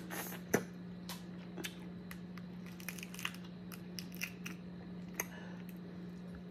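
Boiled crawfish shells cracking and crackling as they are twisted and peeled by hand, with eating sounds, in a string of short, irregular clicks over a steady low hum.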